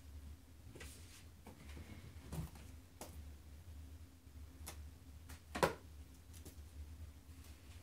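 Kittens playing with a feather wand toy: scattered light clicks and taps, about half a dozen, the loudest about five and a half seconds in, over a low steady hum.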